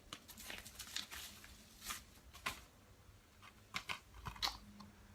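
Packaging being torn open and handled, with faint rustling and crinkling and a few sharper crackles.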